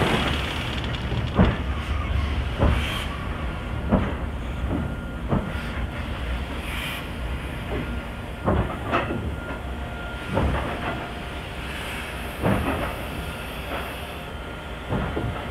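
Steam-hauled train on the move: a steady low rumble with a hiss, and sharp knocks every second or two, some in quick pairs.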